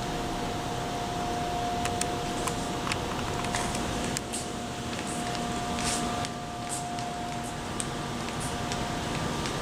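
Steady indoor room tone: an even hiss with a constant thin hum running through it, and faint scattered ticks and short scuffs.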